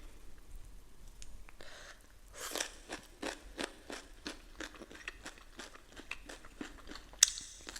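Close-miked chewing of crunchy food in a mukbang, at a steady rhythm of about three crunches a second, starting about two and a half seconds in. There is one louder, sharp click near the end.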